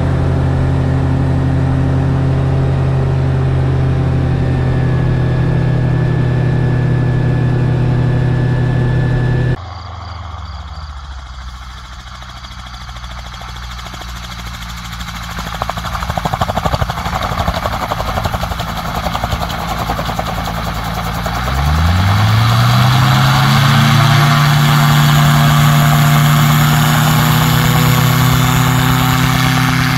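Rotax 915 four-cylinder turbocharged engine of a Niki Kallithea gyroplane. It first runs steadily as heard inside the cockpit; after a sudden cut it is heard from beside the runway, quieter at first and growing louder, then about two-thirds of the way in it revs up quickly to full take-off power and holds there as the gyroplane rolls past.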